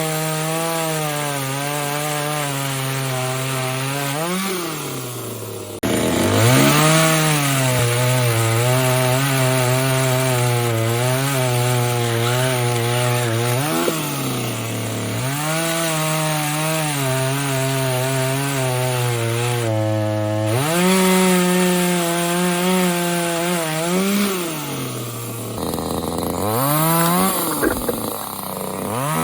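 Two-stroke engine of a Parkside PBBPS 25 A2 top-handle petrol chainsaw running at high throttle while cutting wood. Its pitch sags as the chain bites into the wood and climbs back each time the load comes off, over several cuts.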